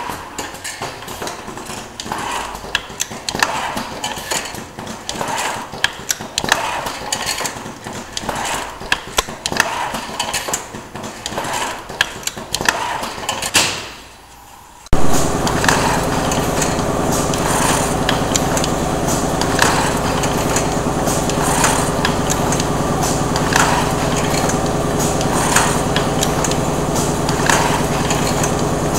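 An automated wooden-ladder assembly machine with pneumatic cylinders at work, giving off irregular clacks and knocks. About halfway through, a loud steady machine hum starts suddenly, with a knock about every two seconds.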